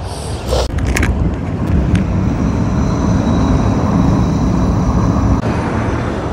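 Steady low rumble of wind and road noise while riding a motorbike, with a few sharp clicks about a second in. The rumble cuts off abruptly about five seconds in, giving way to quieter street sound.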